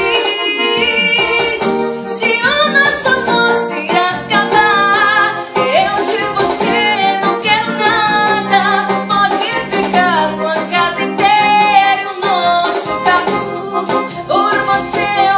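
Woman singing a song, accompanying herself on a Yamaha electronic keyboard.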